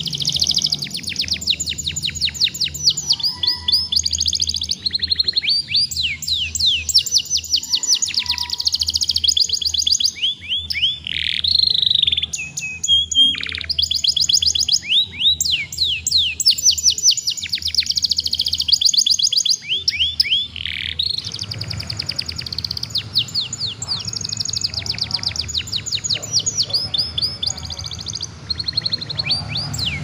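Young domestic canary singing in full song: a long, unbroken run of fast trills and quick down-slurred whistles, high-pitched and varied.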